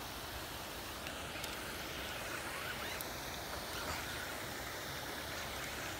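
Steady outdoor background hiss, like wind or moving water, with a few faint clicks.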